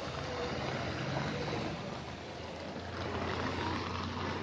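Muddy floodwater from an overflowing river rushing across a road in a steady, even rush of water.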